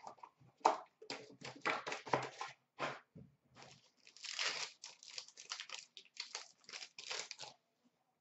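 Hockey card pack wrappers crinkling and tearing as a pack is handled and ripped open, in a quick run of short rustles that stops shortly before the end.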